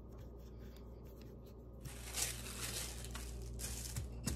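Sheet of parchment paper crinkling and rustling as it is handled and pressed down over rolled pie dough, starting about two seconds in, with a couple of light knocks near the end.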